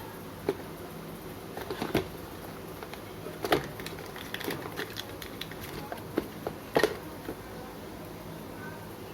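Irregular light clicks and taps of hands handling a new phone and its box and packaging, the sharpest a quick double click about two-thirds through, over a steady faint hiss.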